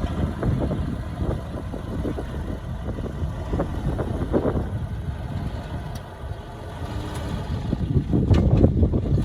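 Diesel engine of heavy earthmoving machinery running at low revs, a steady rumble that eases off about two thirds of the way through and swells again near the end.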